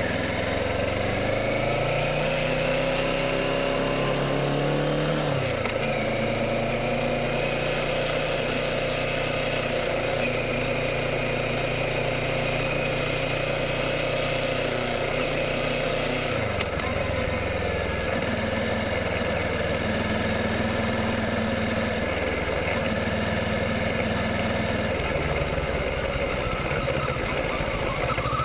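Kawasaki Ninja 650's 649 cc parallel-twin engine running under way at a steady speed, its note shifting about five seconds in and again around sixteen seconds, with a steady rush of noise over it.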